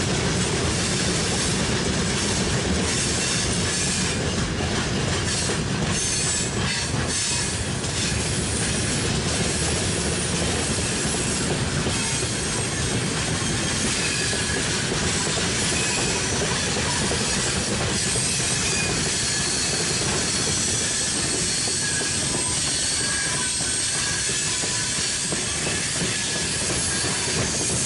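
Long broad-gauge freight train of open coal wagons rolling past, a steady rumble and clatter of wheels on rail with faint, intermittent wheel squeal on the curve.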